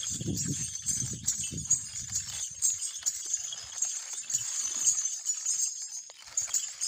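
A Marwari mare's hooves stepping and stamping on a woven charpai as she dances in place on it. The thuds and knocks come irregularly and are heaviest in the first two seconds.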